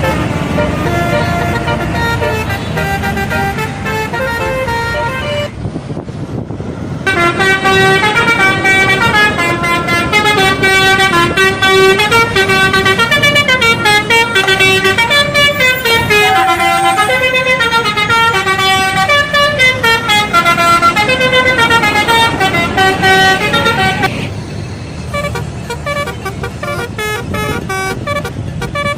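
Indonesian bus telolet horn, a set of air horns playing a tune of several notes at once that step up and down. It is softer at first, drops out briefly about six seconds in, then plays loud from about seven seconds to about twenty-four seconds before softening again.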